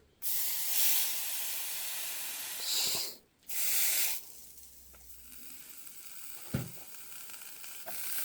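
Liquid hissing and sizzling on hot excavator hydraulic parts, sent up as steam. A loud hiss runs for about three seconds, breaks off, comes again briefly, then settles to a quieter steady sizzle.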